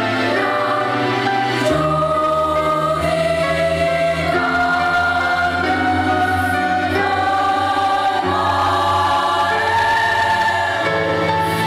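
A girls' school choir singing a slow passage in several parts, with chords held and changing every second or two over sustained low notes.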